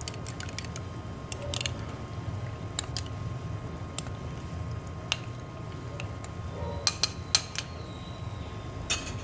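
A metal spoon clinking and scraping against a small glass bowl while stirring milk, in scattered light taps, with a cluster of sharper clinks about seven seconds in. A steady low hum runs underneath.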